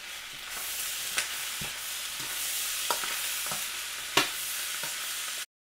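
Pork fried rice with peas and carrots sizzling in a hot wok, a steady hiss that grows louder about half a second in. A few sharp clicks of a utensil against the pan, the loudest about four seconds in. The sound cuts off abruptly near the end.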